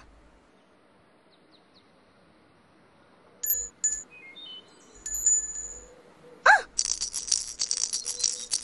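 Tinkling chime and bell sound effects. After a quiet start come a few short high bell tones, then a brief squeak and a fast jingling run of chimes that lasts to the end.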